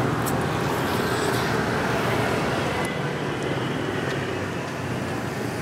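Steady street traffic noise, a constant hum of vehicles on the road beside the stall.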